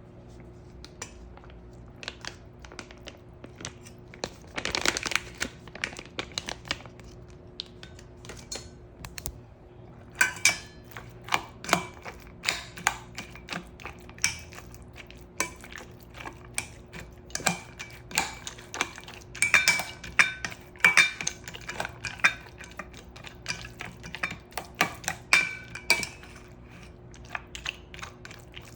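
Dishes and cutlery clinking and clattering, many quick sharp knocks, some ringing briefly, busiest from about ten seconds in until near the end, over a faint steady hum.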